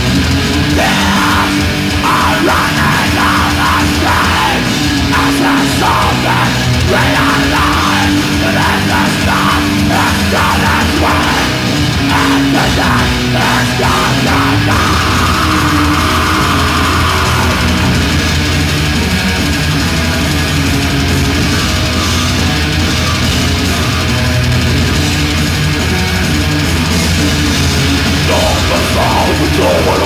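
Melodic death metal band playing loudly on stage, with heavy distorted guitars and fast, driving drums.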